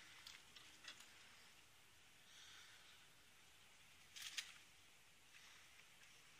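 Near silence: faint outdoor ambience with a few soft clicks, the loudest a brief cluster of clicks about four seconds in.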